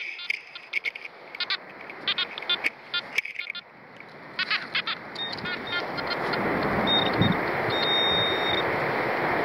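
Makro Multi Kruzer metal detector giving short repeated beeps as its coil is swept over a dug hole in the sand, signalling a buried target. From about halfway a rushing noise swells up and becomes the loudest sound, with a brief steady high beep near the end.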